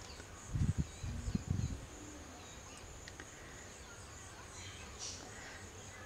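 A few low, dull thumps about half a second to two seconds in, over a steady faint background hiss with a thin high-pitched whine.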